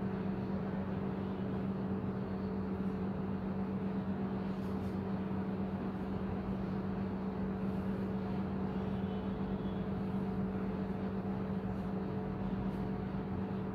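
Steady low hum with an even background hiss, constant throughout: the room tone of a classroom during a pause, with no speech.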